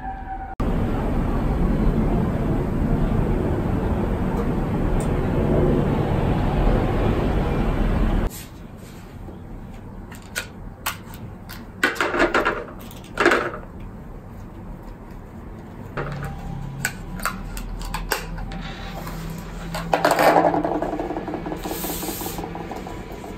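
A steady rushing noise that cuts off suddenly after about eight seconds. Then small objects are handled and set down on a tabletop, with light clicks, knocks and rustling, including a metal glasses case being handled.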